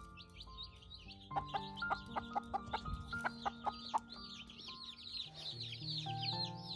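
Baby chicks peeping continuously, many short high chirps in quick succession, over background music.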